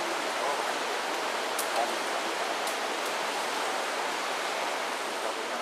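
Wood campfire burning over a steady rushing hiss, with a few sharp crackles and pops from the burning wood.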